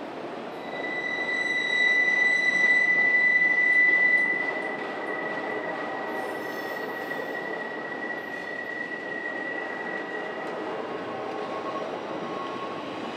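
Freight train cars rolling past with a steady rumble, and a high, steady wheel squeal that sets in about a second in, is loudest for the next few seconds, then fades and dies out near the end. The squeal is typical of wheel flanges grinding against the rail on a curve.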